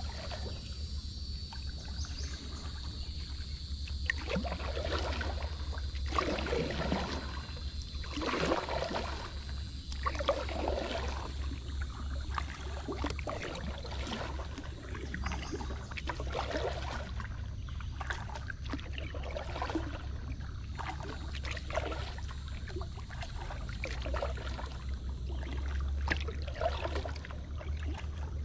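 Kayak paddle strokes in calm water: a splash and trickle of drips roughly every one to two seconds, starting about four seconds in, over a steady low rumble.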